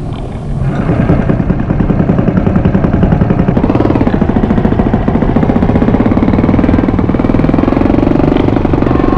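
Ship's engine and propeller noise recorded underwater: a loud, fast, even throbbing over a low hum, building up about half a second in and then holding steady.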